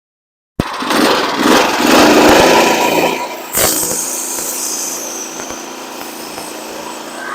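Portable band sawmill's small gas engine running. The sound cuts in abruptly about half a second in and is loud and rough for about three seconds. A sharp knock follows, then a steadier, quieter run.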